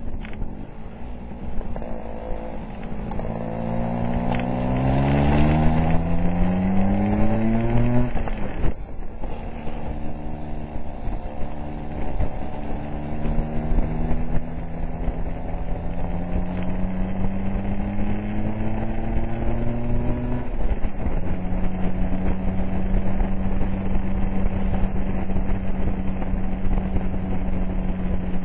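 Scooter engine under way, its pitch climbing steeply as it accelerates, then dropping sharply at a gear change about eight seconds in. It climbs slowly again and drops at a second gear change near twenty seconds, then runs at a steady speed.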